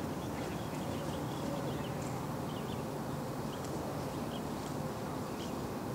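Steady outdoor background noise with faint, scattered short ticks.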